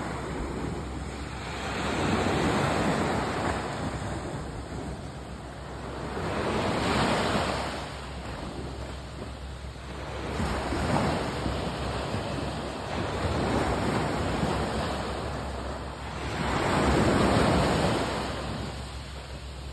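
Small sea waves breaking and washing up a sandy beach, the surf swelling and ebbing about five times, every three to five seconds.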